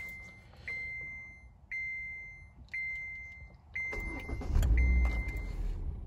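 Car warning chime dinging about once a second, each ding fading out. About four seconds in, the 2015 Kia Forte's four-cylinder engine cranks and catches, its low running sound rising loudly. This is a start after the car has sat for hours, when this engine tends to die out unless the gas is tapped.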